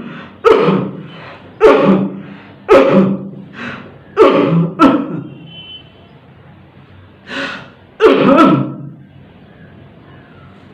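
A person coughing: a string of about seven loud, harsh coughs, roughly one a second, with a weaker one just before the last.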